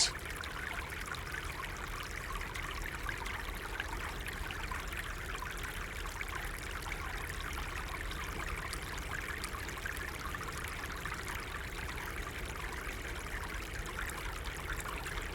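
Running water, a small stream flowing steadily with an even trickling rush.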